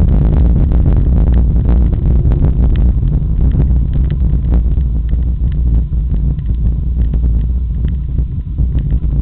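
Wind buffeting the camera's microphone as a mountain bike runs fast down a loose stone and gravel track, with a steady low rumble and frequent sharp clatters and knocks as the tyres and bike hit stones.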